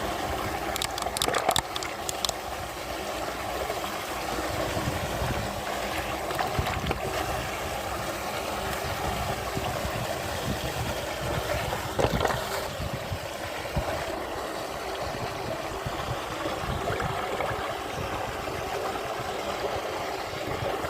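Steady rushing, gurgling water with a faint hum under it. A few short sharp knocks come about a second in and again near the middle.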